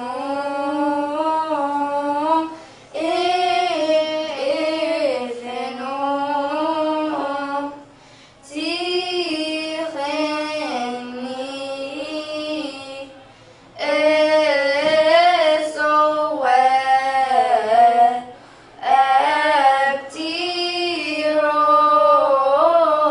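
Two girls singing a Coptic hymn in unison, unaccompanied, in long drawn-out phrases separated by short breath pauses.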